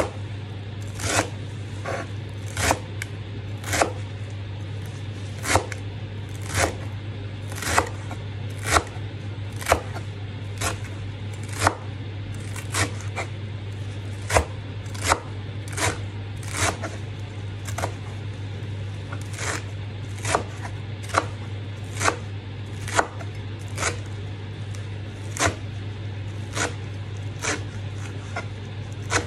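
A chef's knife chopping fresh coriander and parsley on a wooden cutting board: a sharp knock of the blade on the board about once a second. A steady low hum runs underneath.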